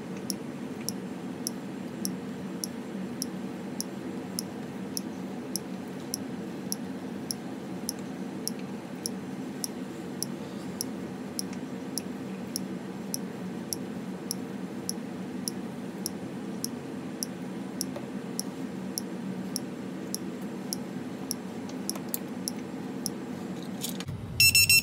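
Hellgate FPV lost-model buzzer ticking with sharp, regular clicks, about two a second: the countdown it runs after the flight battery is disconnected. Near the end it breaks into a loud, high-pitched beeping alarm. A steady low hum runs underneath.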